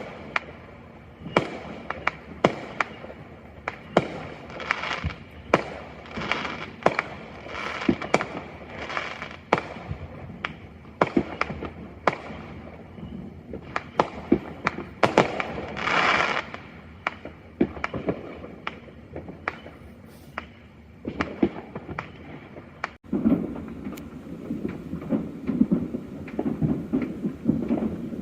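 Neighbourhood fireworks going off in rapid succession: many sharp bangs and crackles with echoing tails. The bangs stop with an abrupt cut near the end, and a lower, busier rumbling sound follows.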